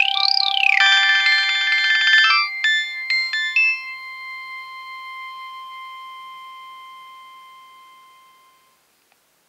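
Nokia 6820a phone ringtone playing from the phone's speaker: a quick rising-then-falling sweep, a burst of rapid repeated notes, a few last notes, then a held chord that fades away over several seconds.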